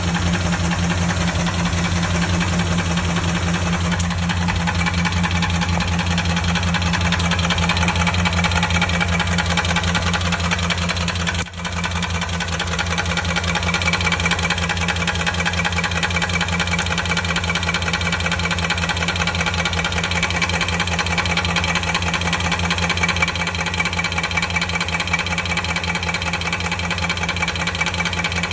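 A 2003 Dodge Durango's 4.7-litre V8 idling steadily with a fast, even tapping through it, the noise that remains after a head rebuild with new lifters and timing chain. The sound dips briefly about a third of the way through.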